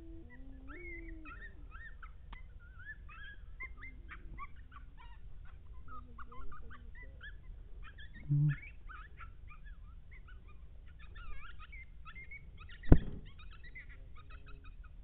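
Coyotes yipping and howling, with many short rising and falling yips overlapping throughout. One sharp, loud crack sounds near the end.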